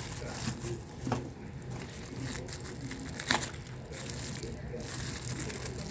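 Handling noises: things being moved and rustled, with two sharp knocks, about a second in and just after three seconds, over a low steady hum.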